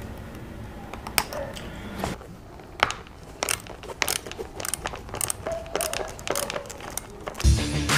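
Irregular small clicks, taps and rustles of hands handling the wiring and connectors of a plastic motorcycle indicator housing. Background music comes in near the end.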